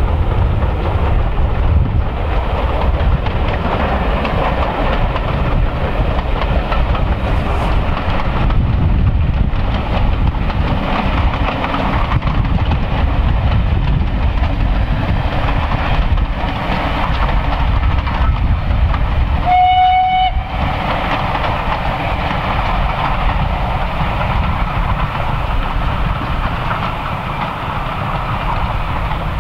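Steam train running with a steady low rumble; about two-thirds of the way through, the locomotive's whistle gives one short blast.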